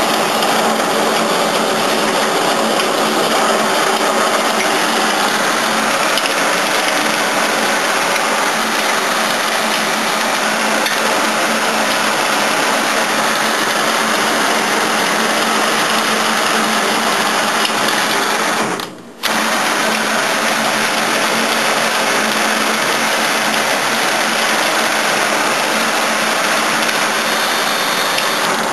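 Cordless drill spinning the threaded drive rod of a home-built CNC router, driving the gantry along its angle-iron track through an anti-backlash nut in place of the stepper motors. It runs steadily, stops briefly about two-thirds of the way through, then runs on.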